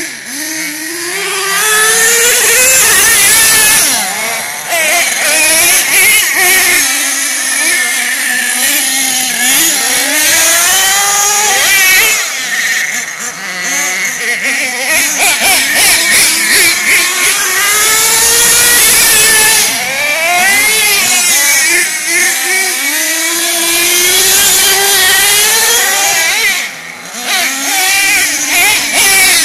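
Nitro RC monster truck's small two-stroke glow engine revving up and down over and over as it is driven, its high-pitched whine rising and falling with the throttle. It drops away briefly near the end before picking up again.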